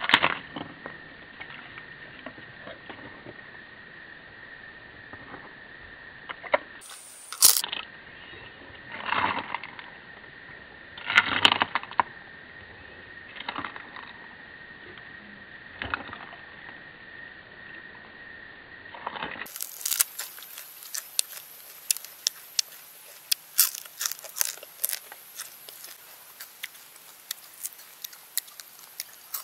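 Crisp deep-fried grasshoppers being chewed and broken apart by hand. For about the first twenty seconds there are crunchy bites every second or two over a steady high tone; after that comes a run of fine, quick crackling snaps as the brittle legs and bodies are pulled apart.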